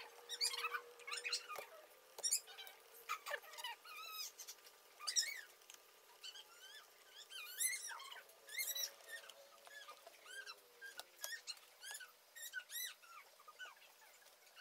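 Small birds chirping: many short, high, repeated calls, with a faint steady hum underneath that drops away about eleven seconds in.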